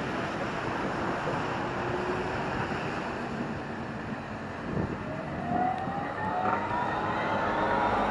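Electric tram approaching on its rails over a steady hiss of street traffic and wind, with a brief low thump near the middle. From about five seconds in, a rising electric whine from the tram's traction motors grows louder as it draws near.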